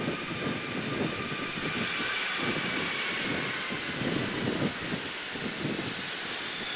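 Boeing 757-200's turbofan engines at approach power as the airliner flies low past just before touchdown: a steady jet roar with a high whine in several tones that slowly falls in pitch as it goes by.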